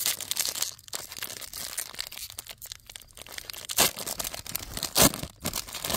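Foil trading-card pack wrapper being torn open and crinkled by hand, with two sharper crackles about four and five seconds in.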